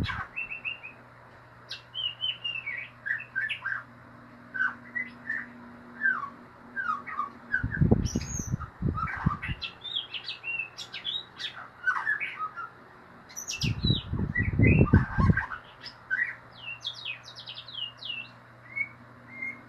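White-rumped shama (murai batu) singing a fast, chattering run of short chirps and whistles (the 'ngeriwik' style), varied in pitch and almost without pause. Twice, at about eight and fourteen seconds in, a louder burst of low, rough noise lasting a second or two breaks in over the song.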